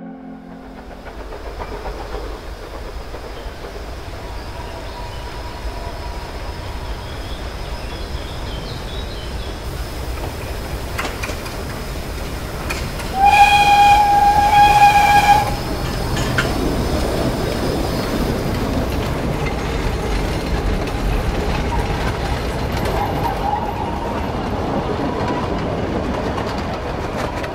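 A 1951 LOWA 50 PS narrow-gauge steam locomotive approaches and runs past with its train, its wheels and cars rolling over the rails. About halfway through it gives one steady whistle blast of about two seconds, the loudest sound. The open carriages then keep rolling past.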